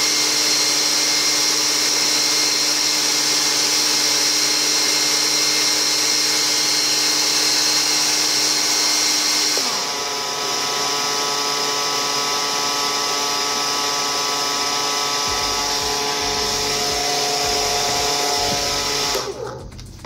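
Two small hair-dryer fan motors of a homemade solder fume extractor running steadily with a high whine. About halfway through the set of tones changes, as if the fan setting is switched. Near the end the fans are switched off and the sound dies away.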